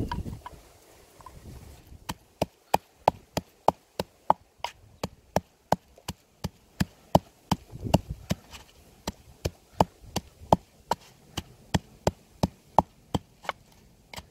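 Wooden pestle pounding spices in a wooden mortar: a steady run of sharp wooden knocks, about three a second, starting about two seconds in.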